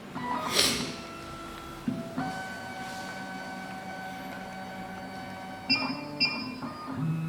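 Background music: a short sweep, then long held notes, with a repeating plucked, guitar-like pattern coming in near the end.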